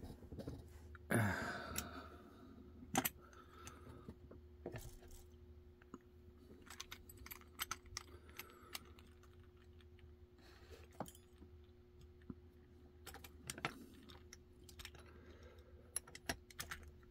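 Small lockpicking vise being handled and adjusted: irregular clicks and light knocks, with a louder scrape about a second in and a sharp knock at about three seconds.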